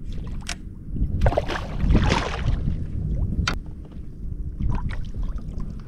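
A hooked fish being landed at a kayak: a burst of splashing from about one to two and a half seconds in, then a sharp knock, over a steady low rumble.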